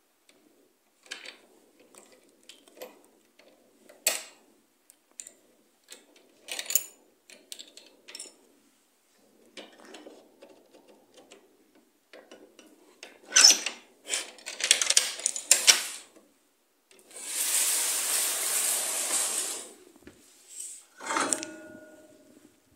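Scattered soft clicks and metallic clinks with handling noise, then a louder cluster of clicks about halfway through, a steady rushing noise lasting about two and a half seconds, and a short squeak near the end.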